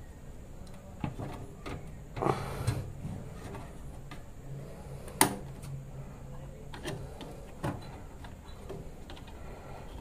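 Scattered clicks, knocks and a brief scrape from hands working inside an open desktop computer case, with one sharp click about five seconds in, over a low steady hum.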